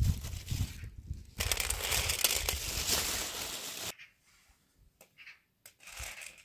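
Dried chickpeas and white beans being poured and spread on a steel tray, a dry clicking and crackling mixed with a plastic bag crinkling. It cuts off abruptly about four seconds in, leaving near quiet with a few faint clicks as the chickpeas are picked over.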